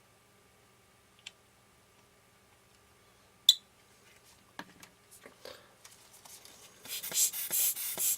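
Small metal lens parts and tools being handled. There is a faint tick, then one sharp click about three and a half seconds in, then light scattered taps, and a dense scraping and rustling near the end.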